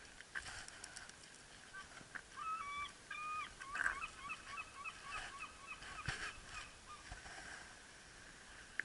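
Geese honking: a run of calls, a few longer ones at first, then shorter, quicker honks from about four seconds in, with a couple of faint knocks.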